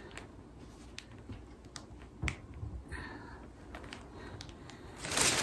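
Groceries and their packaging being handled: scattered light clicks and taps, then a loud rustle of packaging near the end.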